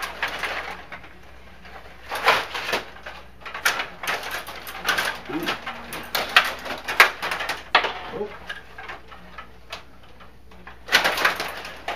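Stiga table hockey game in play: plastic player rods sliding and twisting, with the puck and plastic figures clacking off sticks and boards. The clatter comes in bursts of sharp clacks, easing off near the end.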